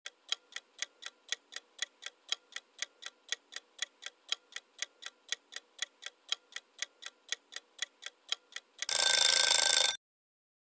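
Countdown-timer sound effect: clock-like ticking, about four ticks a second, then a loud harsh alarm buzz lasting about a second near the end, marking that the answer time is up.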